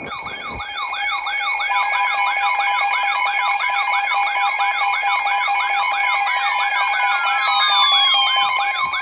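Electronic siren tones layered together: a fast rising-and-falling wail repeating about three times a second over steady high beeps, with a long falling whistle near the end.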